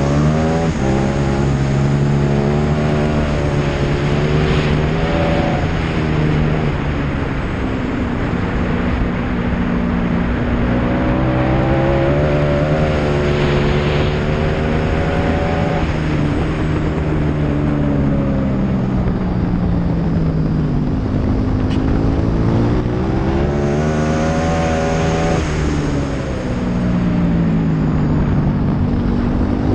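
Motorcycle engine at track pace. Its note climbs under acceleration and falls away under braking several times, with the highest, longest climb on the straight about halfway through, over steady wind and road noise.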